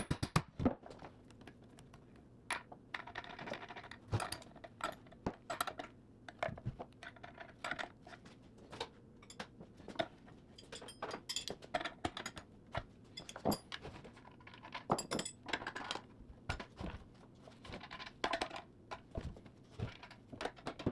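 Bolts, washers and nuts clinking and clicking as they are handled and fitted: irregular light metal taps, some in quick runs, some spaced out.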